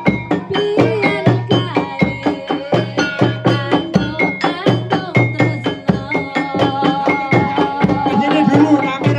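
Gejog lesung: long wooden pestles pounded in a steady interlocking beat on a hollow wooden rice-pounding trough, giving ringing wooden knocks over low thuds, with a woman singing over them through a microphone.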